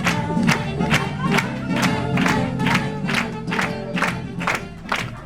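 Music with a steady beat of a little over two beats a second, with a group of voices along with it.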